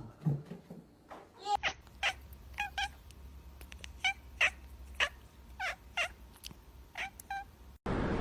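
A cat meowing in a string of short calls, about two a second.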